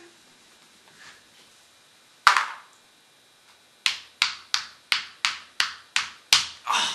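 A board-game piece tapped from space to space along the game board: a run of about ten evenly spaced sharp clicks, roughly three a second, after a single sharper click a couple of seconds earlier.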